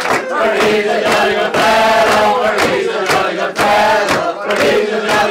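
A roomful of people chanting and singing together in unison, clapping in time about twice a second.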